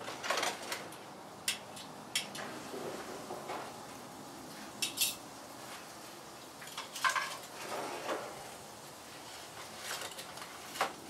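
Scattered clinks and clatters of metal tongs against a gas grill and a plate as cooked food is lifted off the grill. There are about eight sharp clicks spread unevenly.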